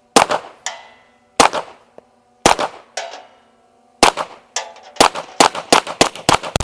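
Suppressed 9 mm SIG P365 Macro pistol fired through a Flow 9K Ti suppressor: several single shots about a second apart, then a quick string of about seven shots from about five seconds in. Each shot is a sharp crack with a short ringing tail, and the shots are pretty quiet.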